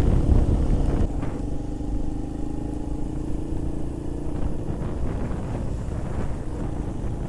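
Keeway RKV 125 motorcycle's single-cylinder engine running at low revs while the engine is run in, with wind rushing over the helmet microphone that dies down about a second in as the bike slows.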